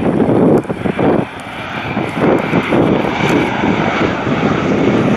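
Jet engines of a Boeing 737 airliner on final approach with gear down: a loud, wavering low rumble that dips briefly about a second in.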